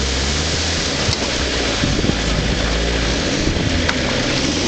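Vauxhall Frontera 4x4's engine running steadily as it drives along a muddy off-road track, under a constant hiss of noise.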